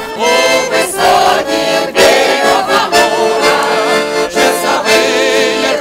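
Weltmeister button accordion (bayan) playing a wartime song, with sustained chords changing about once a second and a man singing along.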